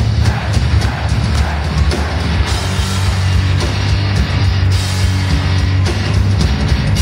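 Heavy metal played live on amplified cellos and a drum kit, loud and dense, with steady pounding drums under the cellos.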